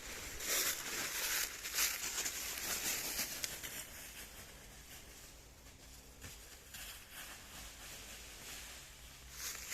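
Dry fallen autumn leaves rustling and crunching underfoot in irregular surges. The surges are loudest in the first few seconds, ease off through the middle and pick up again near the end.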